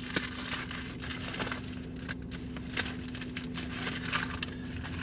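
A mailer envelope rustling and crinkling as it is handled and cut open with scissors, with a few short crackles and snips along the way.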